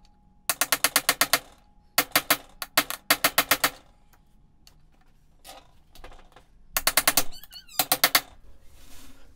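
Hammer tapping a bearing race driver to drive a new steel upper steering-stem bearing race into a dirt bike's steering head. The taps come in quick runs of about eight a second, five runs in all, with a quieter pause in the middle.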